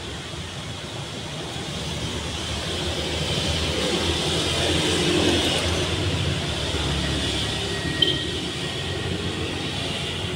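Street traffic noise: a passing vehicle's rumble swells toward the middle and eases off again. A short sharp click sounds about eight seconds in.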